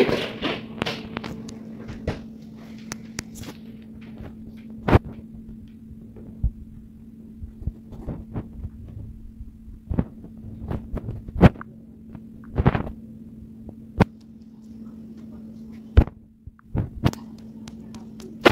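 A steady low hum with a scattering of irregular sharp clicks and knocks over it.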